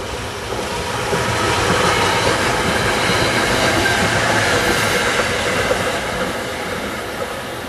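SEPTA Silverliner IV electric commuter train running past on the rails, a loud rolling rumble that swells over the first couple of seconds and eases off toward the end.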